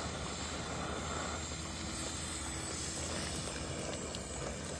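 A large pot of chicken karahi cooking with a steady hiss while a metal slotted ladle stirs it, with a few faint clinks.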